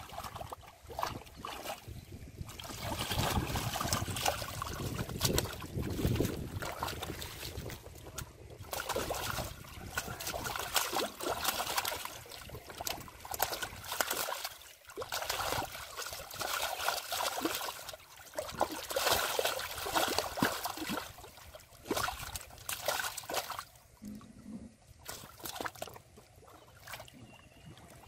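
Hands sloshing and splashing in shallow muddy water while groping in the mud for catfish, with irregular trickles and splashes.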